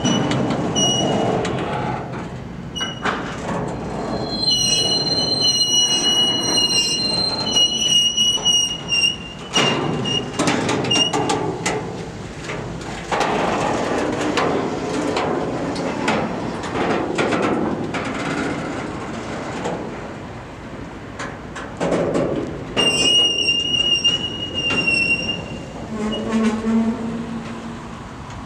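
Double-stack intermodal freight train's well cars rolling past close by, wheels clattering over the rails. A high-pitched wheel squeal comes and goes: in spells a few seconds in and again near the end.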